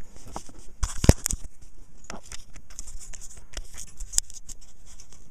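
Camera handling noise: irregular clicks, scratches and rustles of fingers and the camera body being moved, with one sharp knock about a second in.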